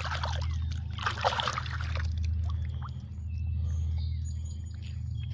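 Water sloshing and splashing in the first two seconds as a freshly found arrowhead is rinsed in the river. A steady low rumble runs under it, and birds chirp faintly afterwards.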